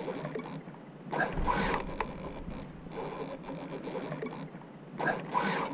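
Spinning reel being wound during a fish fight, its gears whirring steadily, with two louder spells about a second in and near the end.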